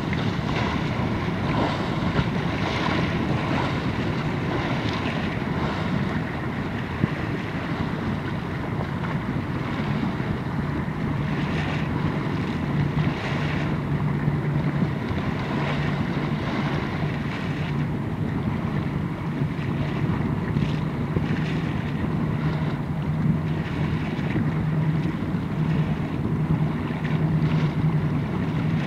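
Wind on the microphone over choppy open water, with waves lapping and splashing now and then. A steady low hum runs underneath.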